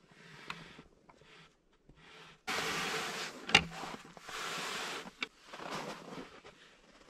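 A heavy wooden plank door of a log cabin being pulled open and stepped through, with several bursts of scraping, crunching and rustling from the door, boots in snow and clothing, and one sharp wooden knock about halfway through.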